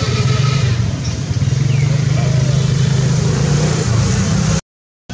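A motor engine running steadily close by, a low even hum with faint voices or calls over it; it cuts off abruptly near the end.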